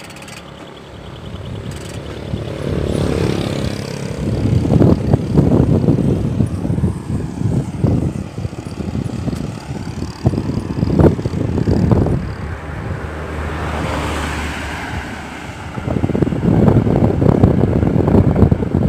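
Mountain bike's Sagmit rear hub ticking as the wheel spins during a sound check, heard through a phone microphone under loud rumbling noise that comes in surges.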